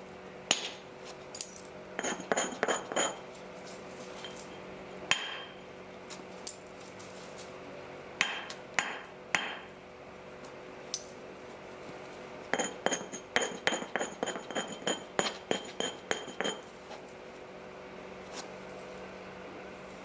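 Flint being knapped with a hand tool: sharp clicks and taps on the tabular Helgoland flint, some with a faint high ring. They come in quick runs of taps with pauses between, the longest run about halfway through.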